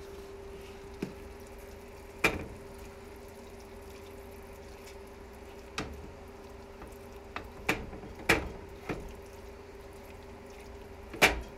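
Spoon stirring cooked ground venison in a skillet, knocking against the pan about eight times, over a steady low hum.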